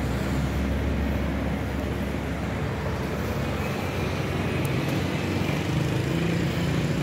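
City street traffic: a steady hum of car engines and tyres, with a low rumble that is heaviest in the first few seconds.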